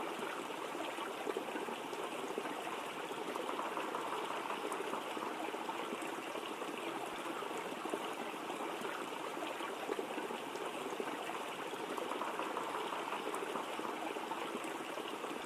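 Waterfall water rushing steadily, an even wash of water noise with no breaks.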